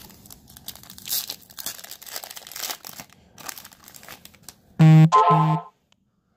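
Foil wrapper of a Panini Threads basketball card pack being torn open and crinkled, a run of rapid crackles. Near the end come two short, very loud buzzing tones, after which the sound cuts off suddenly.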